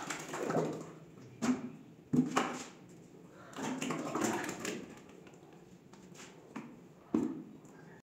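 Thick white emulsion paint poured from one plastic bucket into another, with several sudden knocks and scrapes of the plastic buckets being handled.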